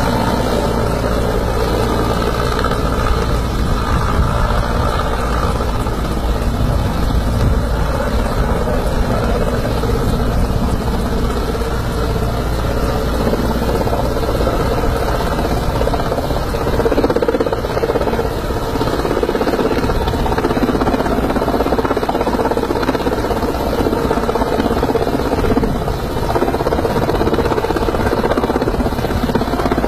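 Mi-8-type helicopter hovering low, with loud, steady rotor and engine noise.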